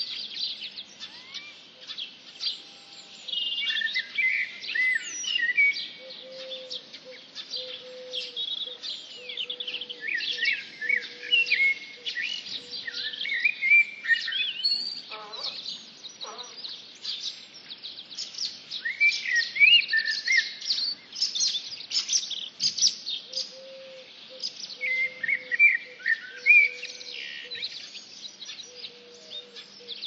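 Several songbirds singing together in a dense chorus of quick chirps, twitters and trills, overlapping throughout, with a lower held note coming and going beneath them.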